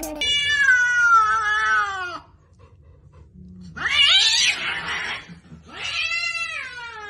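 Cats yowling at each other: three long, drawn-out yowls, each falling in pitch. The middle one, about four seconds in, is harsher, noisier and the loudest.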